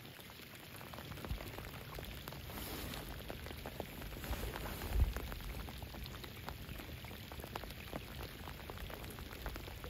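Steady rain falling on a lake's surface, heard as an even hiss with many small drop patters. One low thump comes about five seconds in.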